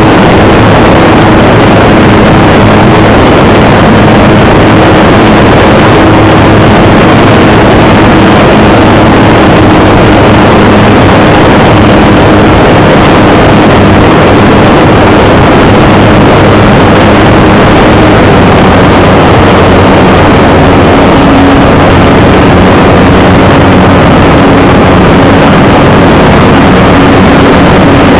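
Motor and propeller of a radio-controlled float Cessna 182 model in flight, heard loud and close from the onboard camera, a steady drone over a rush of noise. Its pitch drops slightly about two-thirds of the way through as the throttle comes back.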